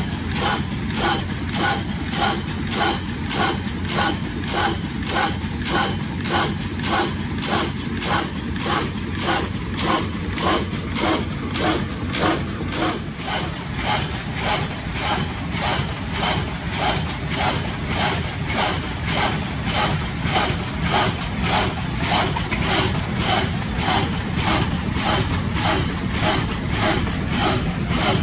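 1979 Bobst SP102E 40-inch automatic platen die cutter running in production on carton stock: a steady rhythmic clatter of about two strokes a second, one machine cycle per sheet, over a continuous low mechanical hum.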